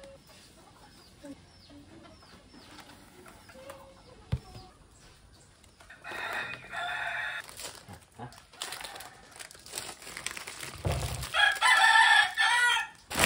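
Rooster crowing twice, the second crow the louder, with plastic candy packets rustling between the crows.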